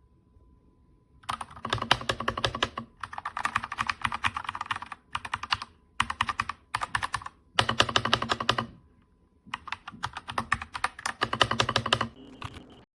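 Typing on an RK Royal Kludge RK61 60% mechanical keyboard: quick runs of key clicks in several bursts, separated by short pauses.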